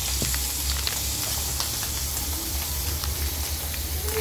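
Pork belly frying in hot oil in a pan: a steady sizzle with scattered pops of spattering fat, over a low steady hum.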